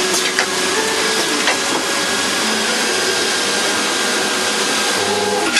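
CNC turning center machining a steel driver-bit blank: a steady hiss of cutting and machine noise with a faint whine and a few light clicks.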